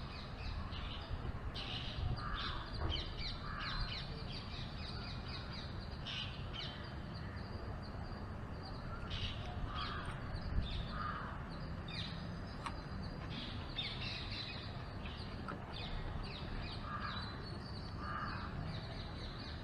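Birds calling outdoors: a call repeated twice in quick succession, three times over about seven seconds apart, with lighter chirps in between.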